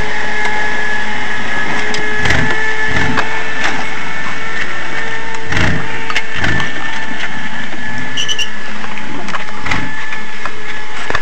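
Off-road Jeep's engine running under load as it crawls through deep mud, with about five heavy knocks and crunches as the tyres and chassis drop into and climb over ruts.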